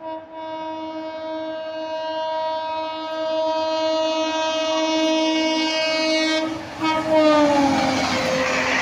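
Express train locomotive's horn sounding one long, steady blast as the train approaches at speed. After a short break about six and a half seconds in, the horn sounds again and drops in pitch as the locomotive passes, under the loud rush and clatter of the train going through.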